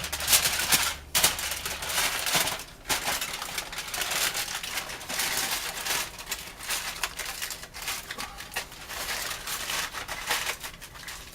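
Aluminum foil crinkling and crumpling in irregular spurts as it is folded and pressed around a rolled roast.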